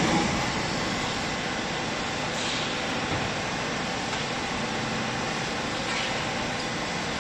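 Vertical downstroke hydraulic clothing baler's electric motor and hydraulic pump running steadily.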